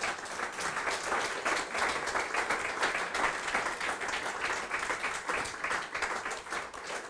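Audience applauding: many hands clapping in a dense, even patter that thins out and dies away near the end.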